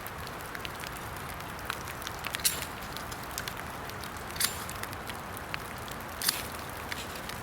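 A small fire of wet kindling crackling, with scattered sharp pops and ticks, three louder ones about two and a half, four and a half and six seconds in, over the steady hiss of rain.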